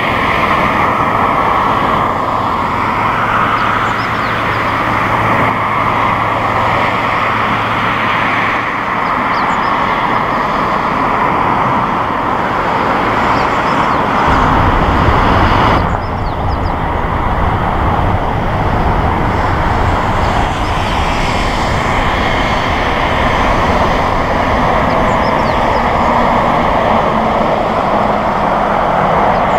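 Airliner jet engines running at taxi power, a steady loud noise with a faint high whine over the first several seconds; a deeper rumble joins about fourteen seconds in.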